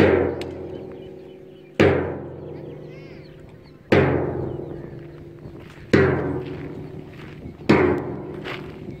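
A large drum struck about every two seconds, five strokes in all, each ringing and slowly fading. It beats time for a mass drill.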